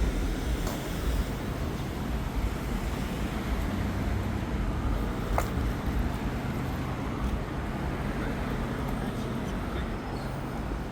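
City street traffic: a steady hum of passing vehicles and engines, with a sharp click near the start and another about halfway through.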